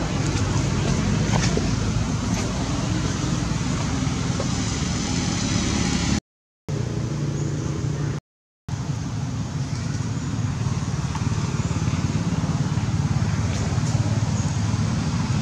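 Steady low engine rumble, like a motor vehicle running, with two short cuts to silence about six and eight seconds in.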